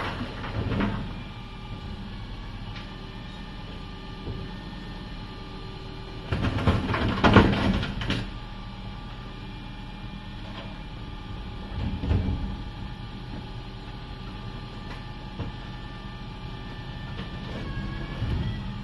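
Refuse collection lorry running steadily at the kerb while its rear bin lift hooks, tips and lowers large wheelie bins. Loud rattling and clattering comes each time a bin is handled and emptied into the hopper, with the longest and loudest spell from about six to eight seconds in and shorter ones near the start, around twelve seconds and near the end.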